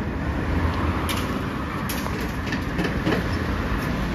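Steady low rumble of street traffic, with a car passing close by near the end.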